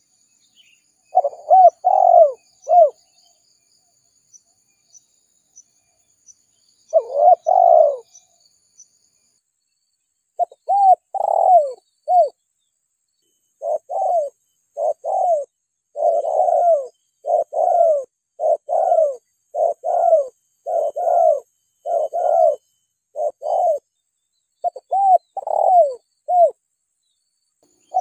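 Spotted dove cooing: short phrases of a few rounded coos, each note falling in pitch at its end. Two brief phrases with pauses between, then phrases repeated about once a second from roughly ten seconds in.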